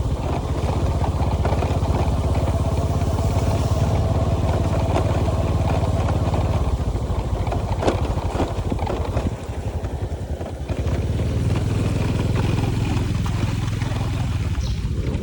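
Small motorcycle engine running steadily while riding along a road; it eases off for a moment about ten seconds in, then picks up again. A single sharp knock sounds a little before that.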